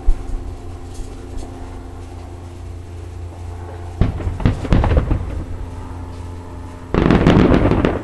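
Aerial fireworks shells going off: a boom right at the start, another about four seconds in followed by a second of crackling, and the loudest, longer burst about seven seconds in.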